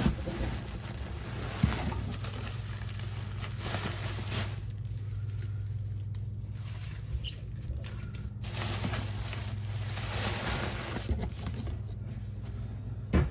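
Plastic air-cushion packing and cardboard box flaps rustling and crinkling in stretches as a box is unpacked, with a few sharp knocks, one about two seconds in and another near the end, over a steady low hum.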